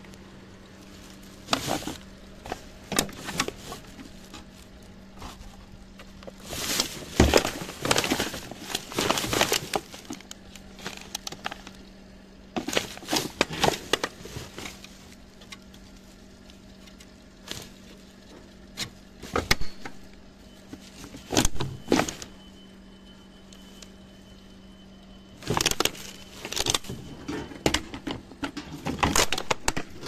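Rubbish being handled: plastic bags and wrappers rustling, with plastic knocks as a canister vacuum cleaner and its hose are moved about among the trash. The bursts come and go over a steady low hum.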